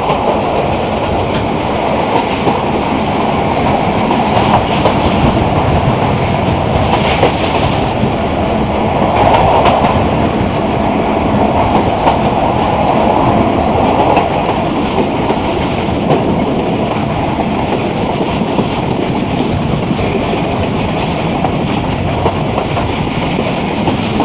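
Pakistan Railways passenger train running at speed, heard from an open coach window: a steady rumble of wheels on the rails with the clickety-clack of rail joints.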